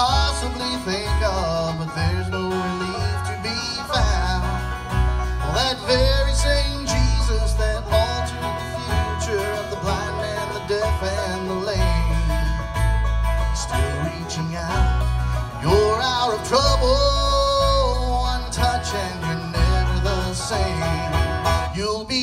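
A live bluegrass band playing an instrumental passage: banjo and acoustic guitar picking, an upright bass plucking low notes, and a fiddle sliding between notes.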